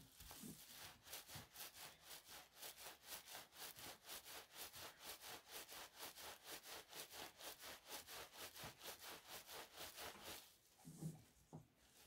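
Towel-wrapped bamboo felting mat, rolled around pipe insulation with wet wool inside, rolled back and forth under the hands: a quiet, rhythmic rubbing swish, about four strokes a second, that stops about ten and a half seconds in. The rolling fulls the wool, shrinking it around the plastic resist.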